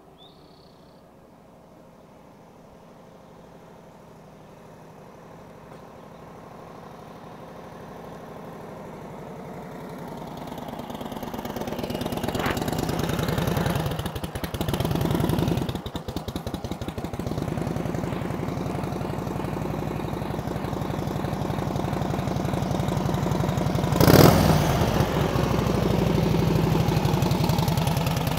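A 1938 Harley-Davidson EL Knucklehead's overhead-valve V-twin gets steadily louder as the motorcycle approaches, then idles with an even, rapid beat. There is one brief loud burst a little before the end.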